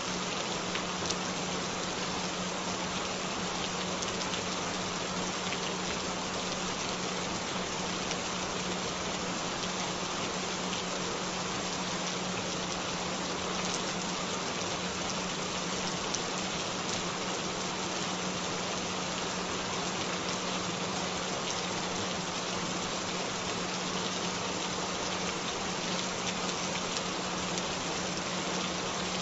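Steady rain with a continuous low tone held underneath it, a frequency track mixed in for headphone listening. A few individual drops tick out slightly above the constant patter.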